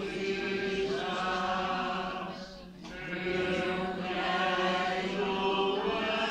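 A group of voices singing a slow church hymn in long, held notes, with a short break for breath about two and a half seconds in.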